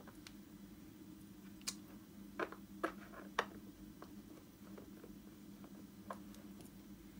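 A faint steady low hum with a handful of small, sharp clicks and taps from a hand handling the case, scattered unevenly, about five over several seconds.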